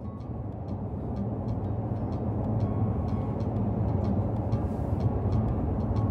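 Steady road and engine noise heard from inside a car cruising on an expressway, fading in at the start, with faint light ticks above the low rumble.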